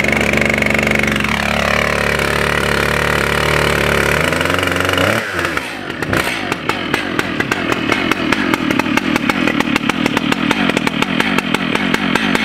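Stihl gas chainsaw engine running at high revs, its pitch falling over the first couple of seconds. About five seconds in the note breaks off and a rapid pulsing chug takes over, as a saw idles.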